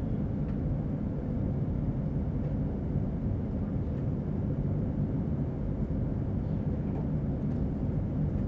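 Steady low rumble at an even level, with a few faint ticks.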